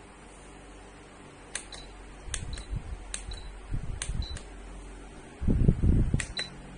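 Ultrasonic aroma diffuser's button pressed five times, each click followed by a short high beep, over a low steady hum. There are some low bumps from handling shortly before the last press.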